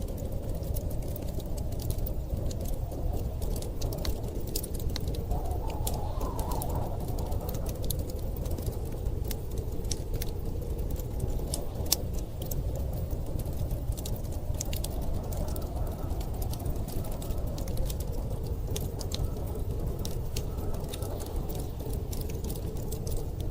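Wood fire crackling with frequent irregular sharp pops, over a steady low rumble of storm wind with a faint wavering howl.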